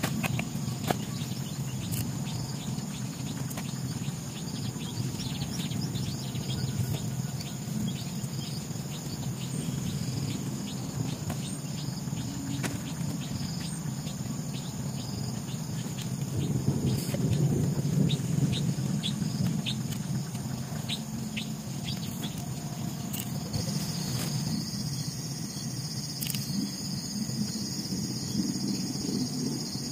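Dusk chorus of insects and birds by a tropical river: a steady high insect drone with many short bird chirps through the first half, the insect buzz growing thicker about three-quarters of the way through. Under it a steady low rumble swells briefly past the middle.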